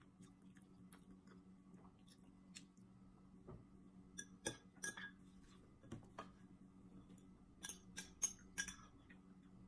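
Metal spoon clinking and scraping against a small glass bowl as the last of the broth is scooped out. There are a couple of light clinks about halfway through and a quick run of clinks near the end, over a faint steady hum.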